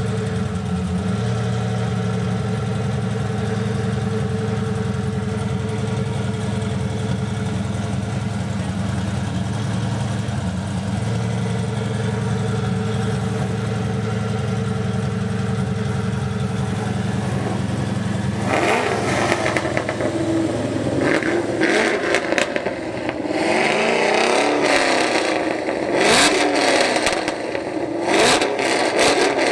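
Twin-turbo Lamborghini Gallardo V10 idling with a steady hum. About two-thirds of the way in, it gives way to an engine revved again and again in rising and falling blips: the cammed, E85-fuelled Cadillac CTS-V coupe's supercharged V8.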